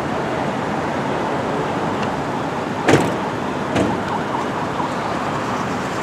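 Steady street and traffic noise, with a sharp knock about three seconds in and a softer one about a second later.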